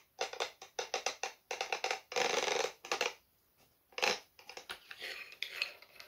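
Hard clicks, knocks and clatters of small tool parts being handled, with a papery or plastic rustle about two seconds in.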